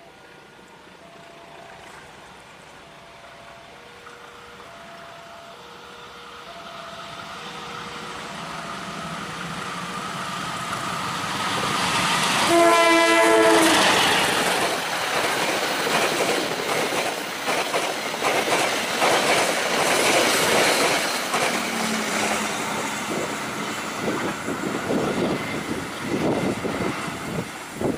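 Diesel-electric locomotive hauling a passenger train approaches, growing steadily louder, and sounds one horn blast of about a second and a half about halfway through. The coaches then pass close by, their wheels clattering over the rail joints.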